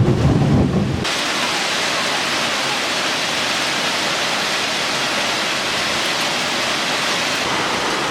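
Heavy rain pouring down steadily during a thunderstorm. A low thunder rumble fills the first second and cuts off abruptly about a second in.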